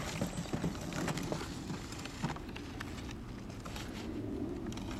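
Scattered light knocks and taps of cardboard fireworks cakes being handled and set down on a wooden pallet, mostly in the first couple of seconds, over a steady low outdoor rumble.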